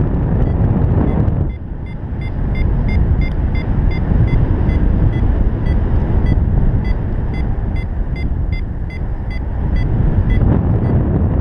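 Wind buffeting the camera microphone in flight, with a paragliding variometer giving a quick series of short high beeps from about a second and a half in until near the end: the vario's climb tone, signalling rising air.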